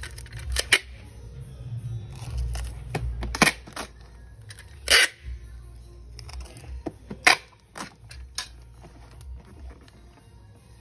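Clear packing tape pulled off a handheld tape dispenser and cut on its toothed blade, with several short sharp rasps and knocks as a cardboard box is taped and handled on a tile floor. Background music plays underneath.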